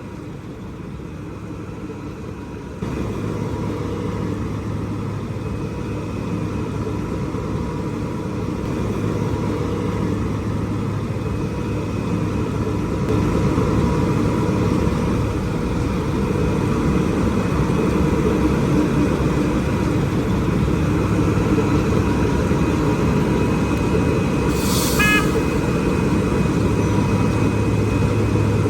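Heavy diesel road-works machinery running steadily, with a low hum that jumps up about three seconds in and slowly grows louder. A brief high squeal sounds near the end.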